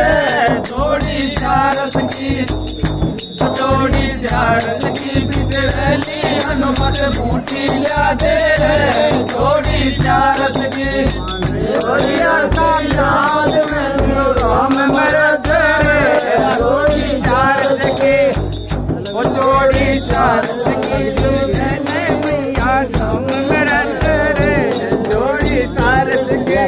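Holi dhamaal folk music: men's voices singing together over a steady, evenly repeating beat of drum and metal cymbals.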